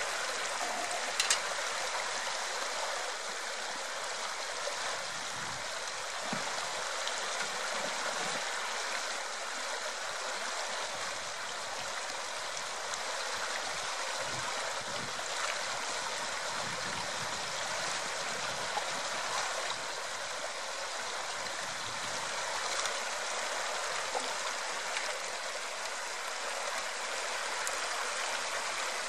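Shallow river running steadily over stones and gravel, with a single sharp click about a second in.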